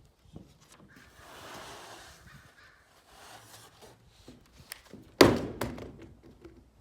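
A loud single thunk about five seconds in, quickly followed by a second knock, among scattered smaller knocks and a brief hiss of noise a second or two in.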